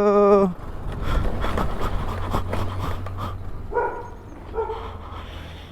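A dog whining: a drawn-out whine that ends about half a second in, then two short whines near the end, over a steady low hum.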